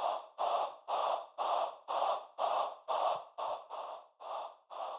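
Artificial breathing made from filtered noise out of Pro Tools' AIR Signal Generator, shaped by vowel filter automation: short breathy bursts at about two a second, the later ones shorter and quieter. The plugin playback is not doing what it was programmed to do.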